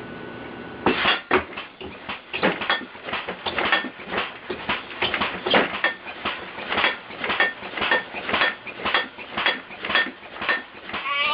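A compressor-powered, computer-controlled homemade alarm rig going off: metal clanking and clattering about three times a second, irregular, starting about a second in and keeping on.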